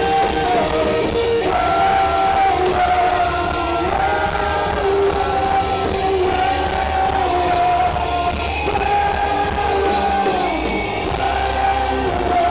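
Live rock band playing with a singer holding long, sustained notes, recorded from within the audience.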